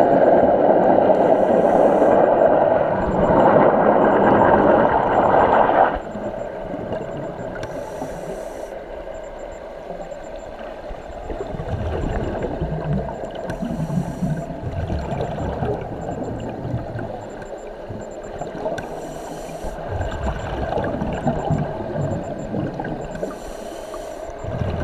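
Underwater sound of a scuba diver's regulator breathing: bubbles gurgling from exhalations, with a short hiss about every five to six seconds. A louder steady rush in the first six seconds cuts off suddenly.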